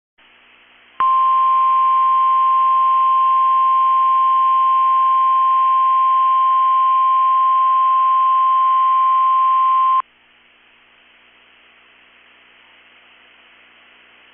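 NOAA Weather Radio 1050 Hz warning alarm tone, a single steady high tone sounded for the weekly test of the weather radio warning alarm. It starts about a second in, holds for about nine seconds and cuts off suddenly, over faint radio hiss.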